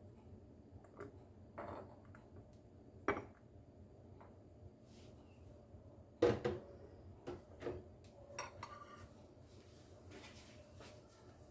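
Kitchen utensils being handled: scattered knocks and clinks of dishes and cutlery, the loudest about six seconds in, with a few brief ringing clinks a little after that.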